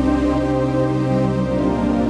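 Background music: slow, ambient-style music with steady held chords.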